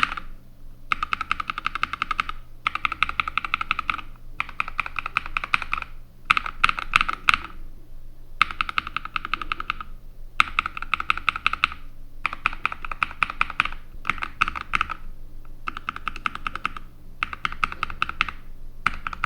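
Mechanical keyboard with Akko CS Matcha Green linear switches being typed on in quick runs of keystrokes, with short pauses between runs: a typing sound test of the switches.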